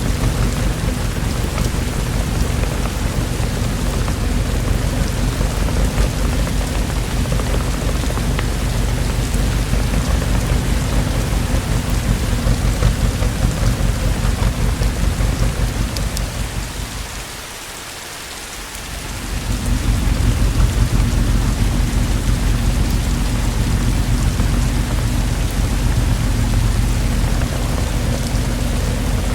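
Heavy rain falling steadily, with a low rumble underneath. The sound thins out and quietens briefly a little past the middle, then comes back at full strength.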